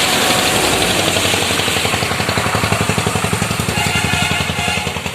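A small motorbike-type engine running nearby with a rapid, even beat, easing off slightly near the end.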